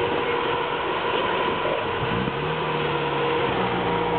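UAZ off-road jeep's engine running, rising in pitch about two seconds in and then holding steady as the jeep pulls away.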